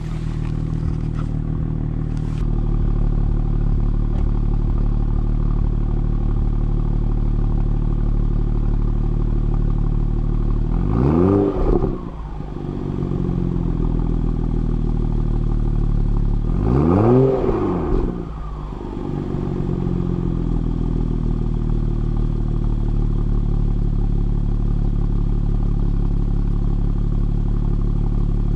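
2016 BMW 435i xDrive's N55 turbocharged inline-six idling cold through an M Performance exhaust, with two short revs, about eleven and seventeen seconds in, that rise and fall back to idle.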